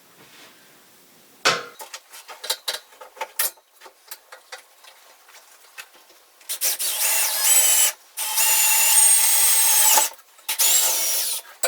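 A few scattered knocks and clicks, then an electric drill with a 3/16 in bit boring through wood and into thin-walled steel tubing. It runs in three loud bursts with a high motor whine that rises in pitch and stops briefly between them.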